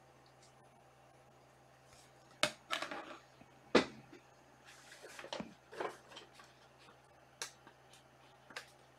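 Trading cards and their packaging being handled: a scatter of sharp clicks and snaps, the two loudest a little over a second apart, with short rustles between them.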